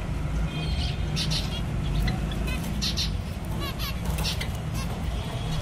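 Caged zebra finches calling: many short, sharp calls in an irregular run, over a steady low background rumble.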